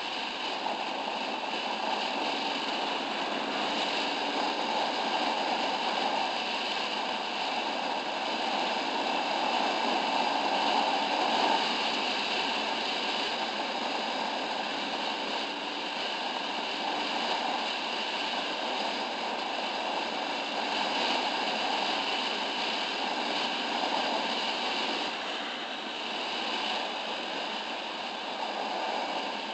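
Steady rushing wind and road noise on a camera mounted on a moving motorcycle, with the bike's engine running underneath.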